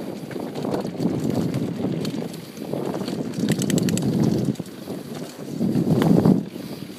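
Bicycle ride on a bumpy dirt trail heard through a phone's microphone: wind rushing over the microphone, swelling and fading, with the tyres rolling over the rough ground and a quick rattle of clicks about halfway through.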